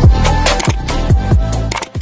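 Intro music: an electronic hip-hop beat with deep bass drum hits that drop in pitch, about two a second.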